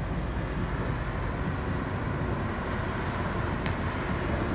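Fire truck's diesel engine idling with a steady low rumble, with one faint click near the end.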